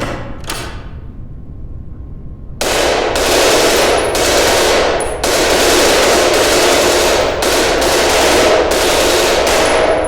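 Two sharp hits, then from about two and a half seconds in a long, loud stretch of rapid automatic gunfire, briefly broken twice.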